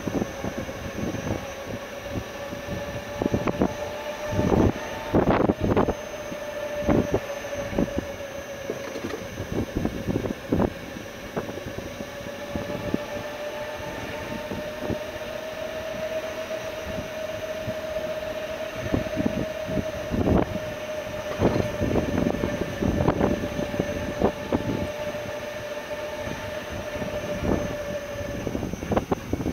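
Electric tourist train running, heard from on board: a steady whine from its electric drive that drifts a little up and down in pitch and stops near the end, with many knocks and rattles from the carriages.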